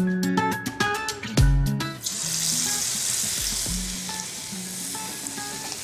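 Plucked guitar background music, then from about two seconds in a steady sizzle of paneer-stuffed, batter-coated green chillies (mirchi bajji) deep-frying in hot oil, with the music going on faintly underneath.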